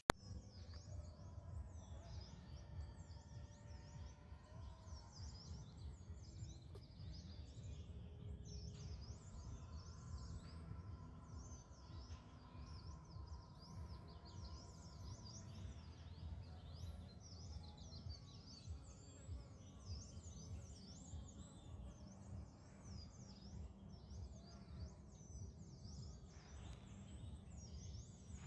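Dense chorus of small birds chirping and twittering over a low, steady rumble.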